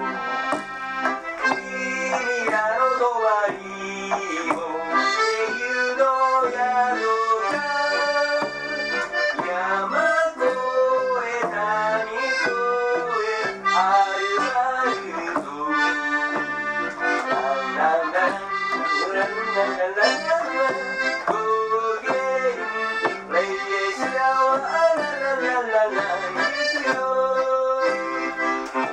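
Accordion playing a quick, flowing melody, with an upright double bass and an acoustic guitar accompanying it.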